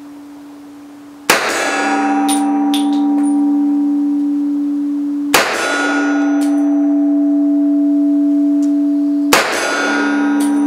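Three shots from a Mauser C96 Broomhandle pistol in 7.63×25mm Mauser, about four seconds apart. Each is followed by a long metallic ringing that fades slowly. The third shot is the last round, and the bolt stays open after it.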